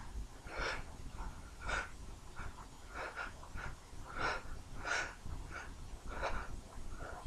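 A man's short, sharp breaths and sniffs, about one a second: the catching breaths that build up to a sneeze.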